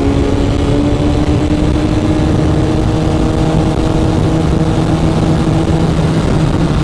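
BMW S1000RR's inline-four engine running under way, its note rising slowly and steadily.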